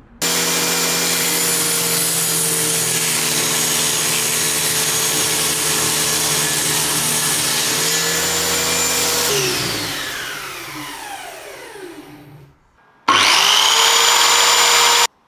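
Ryobi circular saw, mounted under a homemade table-saw top, running at full speed as a board is fed through the blade. About nine seconds in it is switched off and winds down with a falling pitch. After a short silence the saw starts again, spinning up quickly to a steady high speed, and cuts off abruptly near the end.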